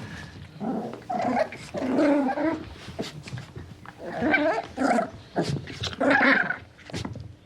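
A dog vocalising in a series of about six short calls, some longer and some clipped, with pauses between them.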